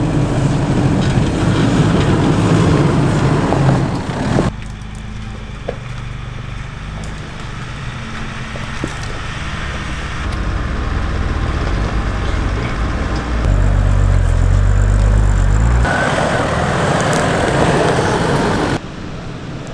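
4x4 vehicles driving: steady engine and tyre rumble that changes abruptly about four and a half, sixteen and nineteen seconds in, as one driving clip gives way to another.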